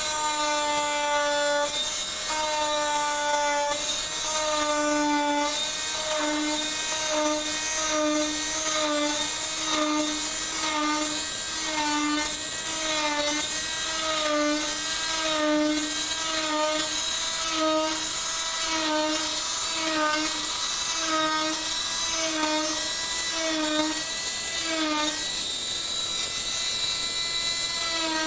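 Electric oscillating cast saw running with a steady high whine as it cuts through a plaster cast. The pitch sags briefly about once a second as the blade is pressed into the plaster and lifted, in the in-and-out strokes used to bivalve a cast, and holds steadier near the end.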